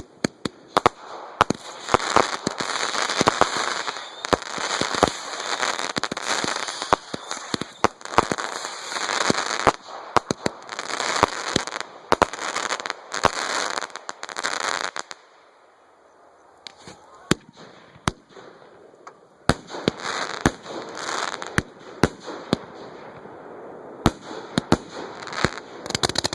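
Fireworks going off at close range: a dense run of bangs and crackling for about fifteen seconds, a short lull, then scattered single sharp bangs.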